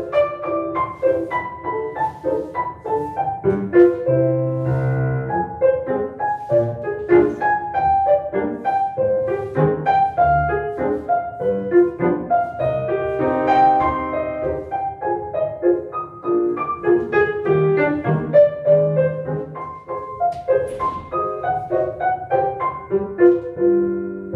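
Solo piano music in a classical style, as played for a ballet barre exercise: a quick, continuous run of notes with a steady pulse.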